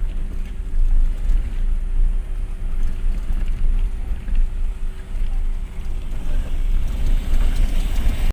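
Wind rumbling on the microphone over a motorcycle engine running steadily, heard from a moving motorcycle.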